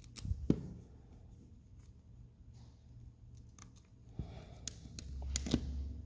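Hand ferrule crimping tool: a few clicks as a ferrule on 8-gauge wire is set into its jaws, then sharp clicks from about four seconds in as the handles are squeezed to crimp it.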